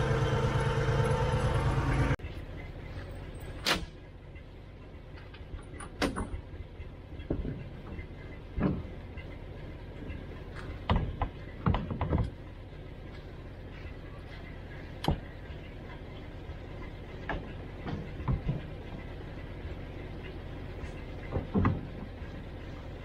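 Tractor engine running loud in the cab for about the first two seconds. After that, with a quieter engine idling behind, come a dozen or so separate knocks and clunks: the wooden side board of a tipping trailer being shut and its latches fastened.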